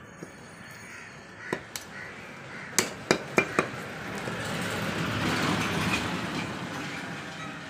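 Butcher's cleaver chopping rabbit meat on a wooden log block: a few light knocks, then four sharp chops in quick succession about three seconds in. A broad rushing noise swells and fades over the second half.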